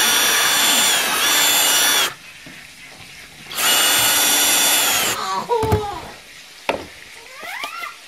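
Electric drill whining in two runs, about two seconds and a second and a half long, boring out a hole in a plastic modem housing to fit an SMA antenna connector; its pitch sags briefly under load in the first run. Afterwards come softer scrapes, a click and short squeaks of the plastic housing being handled.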